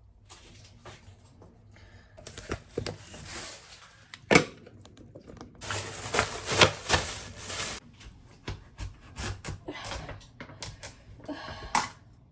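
Knife chopping onion on a cutting board: irregular sharp taps with one louder knock about four seconds in, and two stretches of rustling noise between them.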